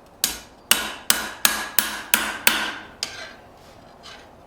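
Hand hammer striking a 1/2-inch square steel bar on an anvil to straighten it: seven sharp ringing blows about three a second, then a few lighter taps tapering off.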